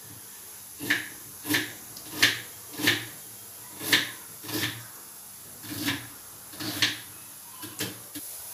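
Knife chopping onion and green chillies on a cutting board: about ten separate knocks, spaced unevenly, roughly one every half second to one second.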